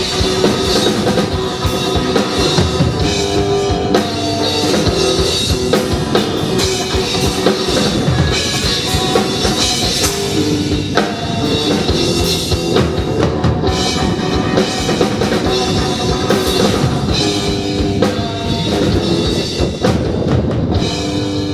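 Live rock band playing an instrumental passage: full drum kit with bass drum and snare, with guitars and bass.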